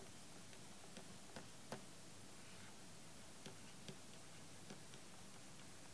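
Near silence with a few faint, sharp taps of a stylus on a pen tablet as the hatching and lettering are drawn.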